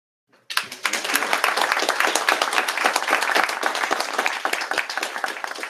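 Audience applauding, starting suddenly about half a second in and beginning to thin out near the end.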